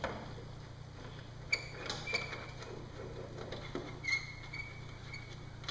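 Faint, scattered light clicks and creaks of motorcycle fairing parts and screws being handled, over a steady low hum.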